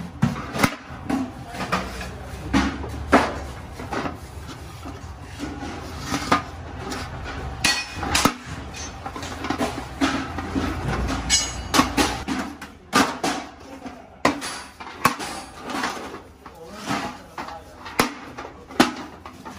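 Galvanized steel buckets knocking and clanking as they are handled and rubbed inside with a rag, in a string of sharp irregular metallic knocks. A low background rumble stops about twelve seconds in.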